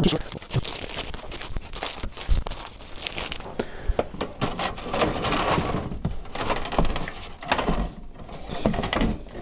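Plastic wrapping crinkling and rustling, with loose Commodore 64 motherboards clicking and scraping against each other as a hand rummages through a box of them.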